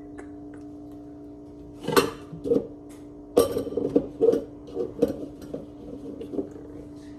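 Kitchenware being handled: an irregular run of sharp clinks and knocks from about two to six and a half seconds in, over a steady hum.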